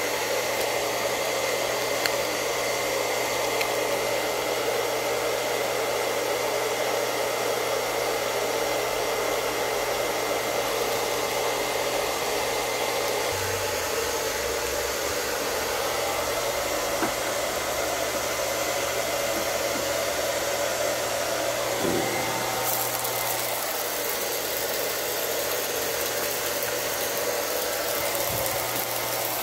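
A steady whooshing air noise from a running blower-type appliance, unchanging throughout, with a faint high whine. A few small handling bumps near the middle.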